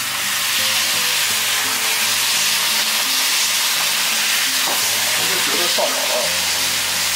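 Stinky mandarin fish and pork belly sizzling steadily in a hot wok while the high-proof baijiu poured over them burns off in flames.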